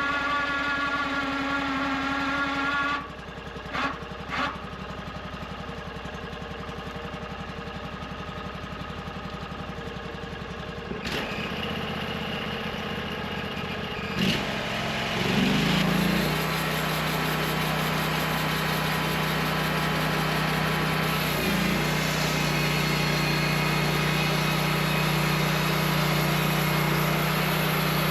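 Small gasoline engine of a homemade sawmill running: about three seconds in it drops back to a quieter idle with a couple of knocks, then around fifteen seconds in it speeds up and settles into a louder, steady run.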